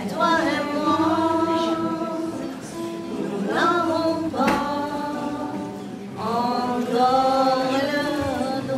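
A group of women singing a song together, holding long notes with short breaks between phrases about three and a half and six seconds in.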